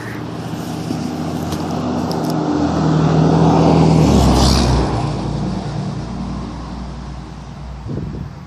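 A car passing by on the road, its engine and tyre noise growing louder to a peak about four seconds in, then fading away.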